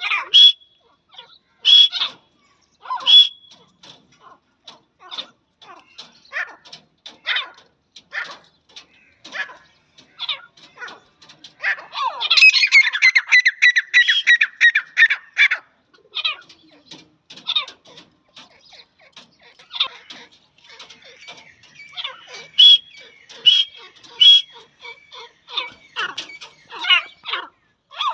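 Grey francolins calling: short sharp notes about a second apart, with a fast unbroken run of chattering notes lasting about three seconds near the middle.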